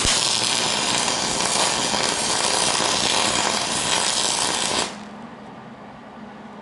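Millermatic 175 MIG welder running a bead on aluminum, feeding .035 ER5356 wire through a standard MIG gun under pure argon: steady arc noise for about five seconds that cuts off suddenly.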